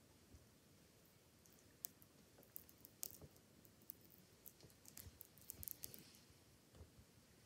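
Faint, irregular crackling clicks of an Indian giant forest scorpion chewing a black cricket with its chelicerae, crunching through the insect's body; the clicks come thickest in the middle stretch.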